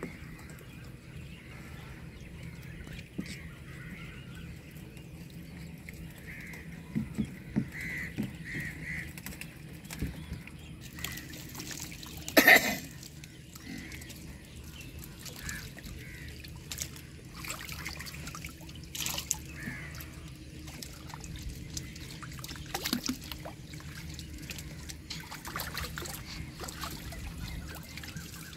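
Water sloshing and trickling as a man wades and works inside a bamboo-slat fish trap, with scattered light knocks of the slats and one sharp, loud knock about halfway through.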